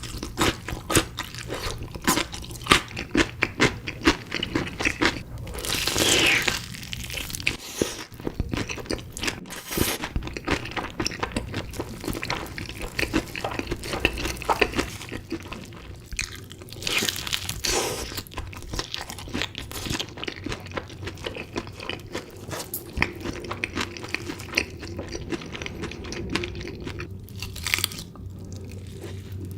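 Close-miked eating of chicken pieces in spicy sauce: repeated crunchy bites and chewing, with a few louder bites.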